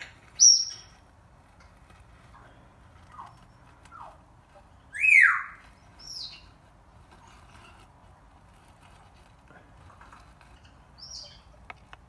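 Birds calling in short, separate chirps. The loudest come about half a second in and about five seconds in, the second a call that slides downward in pitch, with fainter chirps scattered between.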